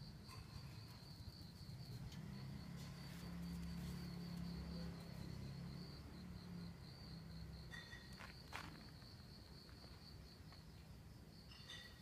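Faint, steady, high-pitched insect trill running on and on. A low rumble rises for a few seconds early on, and there is a single sharp tick about two-thirds of the way through.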